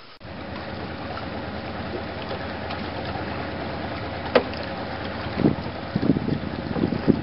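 Small boat moving on the water: a steady low rumble with wind on the microphone. A sharp click comes about four seconds in, and several low thumps follow in the last two seconds.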